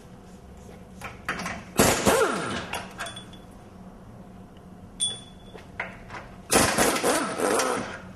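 Pneumatic impact wrench running in two bursts of about a second each, some five seconds apart, with a brief short burst between them: the front differential's mounting bolts being loosened for removal.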